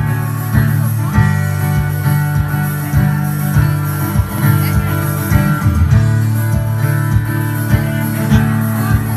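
Live band music with acoustic guitar strumming over sustained bass notes and a steady beat about twice a second, with no singing.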